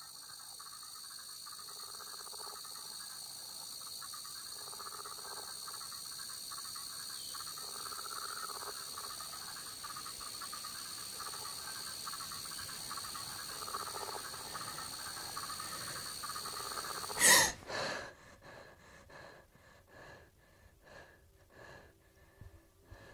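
Film sound design: a high, steady insect chorus of crickets or cicadas swells slowly, with a soft pulse repeating every few seconds. About seventeen seconds in, a sudden loud hit cuts it off, and only faint short sounds follow.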